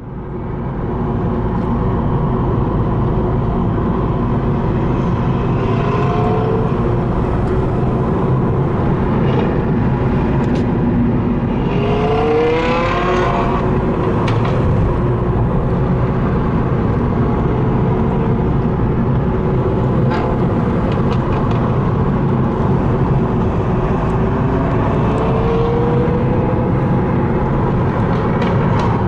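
Lamborghini Huracán LP 610-4's 5.2-litre V10 running steadily while cruising, its pitch rising several times as it accelerates. Sharp exhaust pops and crackles break in now and then.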